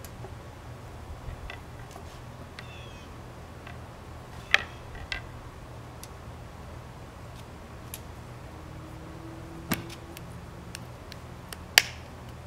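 A few sharp wooden knocks and clicks as a hexagonal wooden bottle crate is handled and its lid set in place, the loudest near the end. A faint steady low hum runs underneath.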